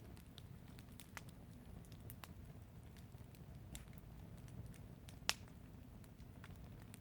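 Fire in a garden fireplace crackling, with scattered small pops and one sharp, louder pop about five seconds in, over a low steady rumble.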